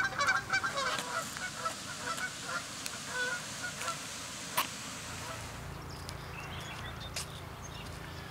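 A flock of geese honking, with many short calls overlapping. The calls thin out and stop about five and a half seconds in, leaving a steady low hum.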